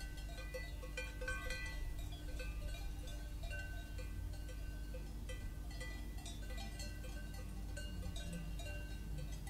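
Several cowbells on grazing cattle, clanking irregularly at different pitches, over a steady low hum.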